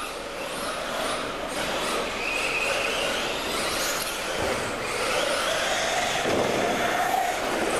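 Racing engines revving out of sight, their pitch rising and falling over and over, getting louder over the first couple of seconds.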